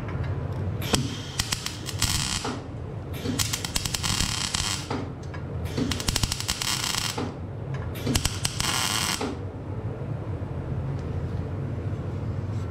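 Electric arc welding on the steel exhaust pipe of an Emirsan Patpat two-wheel tractor. There are five crackling bursts, each lasting up to about two seconds, over the first nine seconds, and a steady low hum runs under them throughout.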